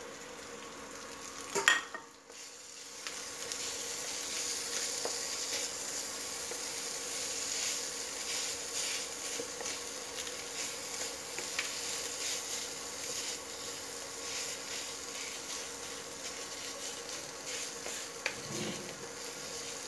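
Minced chicken samosa filling sizzling in a nonstick kadai while a wooden spatula stirs and scrapes it, in many short strokes. There is a sharp knock about two seconds in, and the frying sizzle rises just after it. A faint low steady hum sits underneath.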